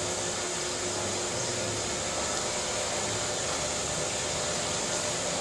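Steady machine hiss and hum from dairy milking equipment running, with no change in level.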